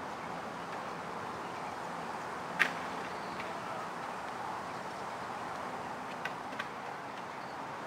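Steady outdoor background noise with one sharp click about two and a half seconds in and two faint clicks near the end.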